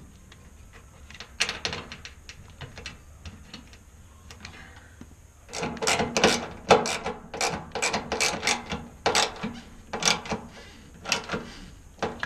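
Hand screwdriver driving the mounting screws of a new washing machine drain pump: a few scattered clicks, then, from about halfway, a quick run of sharp clicks as the screw is turned down.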